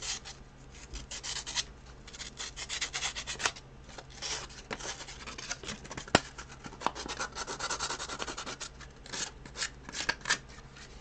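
Sandpaper rubbed by hand over a resin 3D-printed part in quick runs of short back-and-forth strokes, finer sanding after rough filing. There is one sharp tap about six seconds in.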